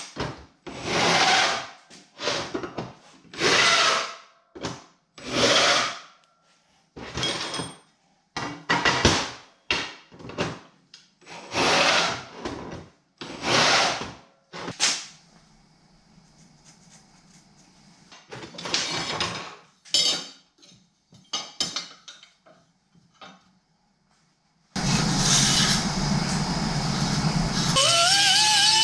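Power drill boring holes through steel plate in repeated short bursts. Near the end a die grinder with a small abrasive disc starts up and runs, its whine wavering in pitch as it works against a steel tube.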